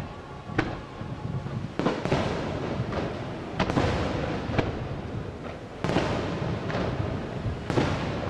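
Fireworks display: aerial shells bursting with sharp booms, about six in eight seconds, each followed by a drawn-out echoing rumble.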